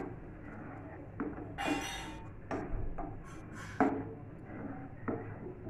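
Black plastic spoon stirring tomato purée in a non-stick pot, knocking and scraping against the pot about five times, the loudest knock near four seconds in.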